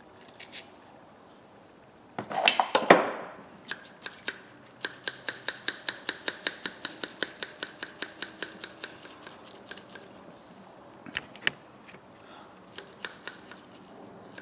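A brief loud spray hiss of WD-40 about two seconds in, then the spring-loaded diagonal cutters being worked open and shut, their metal jaws clicking three to four times a second for several seconds, with a few scattered clicks near the end as the stiff joint frees up.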